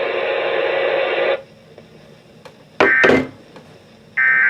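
Weather radio at the end of a warning broadcast: about a second and a half of steady radio hiss cuts off. Then come two short bursts of warbling digital data tones, about three seconds in and near the end, the first with a sharp click. They are the EAS end-of-message bursts that close the alert.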